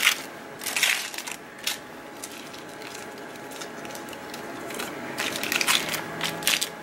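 Aluminium foil crinkling as it is pulled open by hand: a few short crackles in the first two seconds, then a busier run of crinkling near the end.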